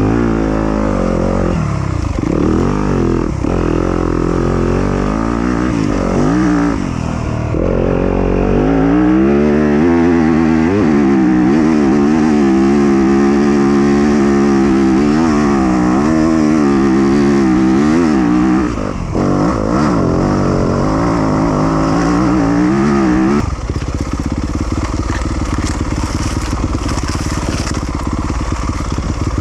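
2020 Yamaha YZ250FX 250 cc four-stroke single-cylinder dirt bike engine under a rider over rough enduro terrain, its revs rising and falling again and again. About 23 seconds in, the engine's pitch fades into a rougher, clattering running noise.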